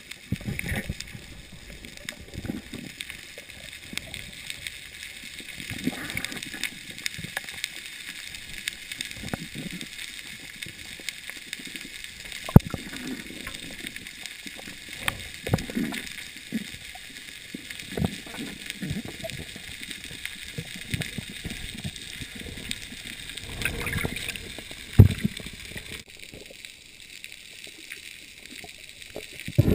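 Camera audio recorded underwater: muffled water movement and gurgling with a steady hiss, irregular low thuds and a couple of sharp clicks.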